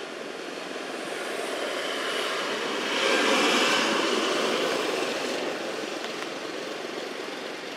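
A passing vehicle: its noise swells to a peak about three seconds in and then fades away.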